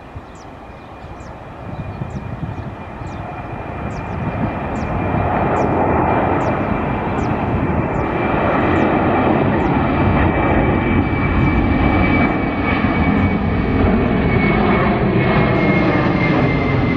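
Airbus A330-300 jetliner climbing out at takeoff thrust, its General Electric CF6 turbofans growing steadily louder for the first several seconds as it comes overhead, then holding a loud rumble. A steady high engine whine runs above the rumble and drops slightly in pitch near the end as the aircraft passes.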